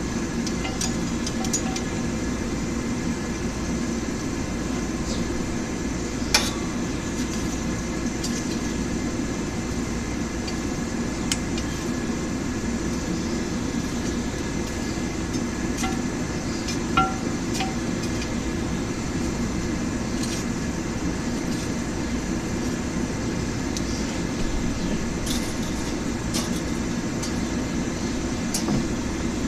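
Steady roar of a blacksmith's forge and its air blower, with a few scattered light metallic clinks.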